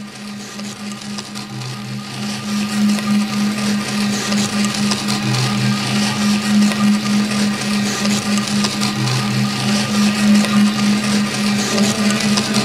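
Live electronic noise music from synthesizers through a PA: a throbbing low drone under a harsh, hissing wash of noise, swelling louder over the first few seconds and then holding steady.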